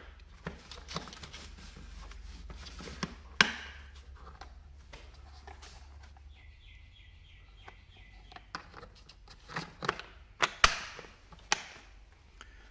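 Sharp clicks and knocks of a black plastic hard carrying case being unlatched and opened. The loudest snap comes about three seconds in, and another cluster of clicks comes near the end as the case is shut again.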